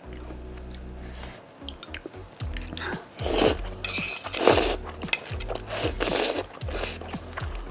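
A person slurping malatang noodles and broth off a ceramic spoon, three long slurps from about three to six and a half seconds in, with chewing and light clicks of chopsticks against the spoon and bowl. Soft background music runs underneath.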